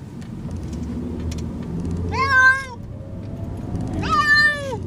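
Domestic cat meowing twice, about two seconds apart, the second meow sliding down in pitch, over a steady low rumble.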